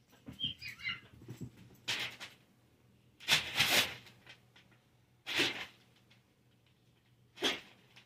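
Four short barks, a second or two apart, the second one longer and loudest, with a few faint chirps before them.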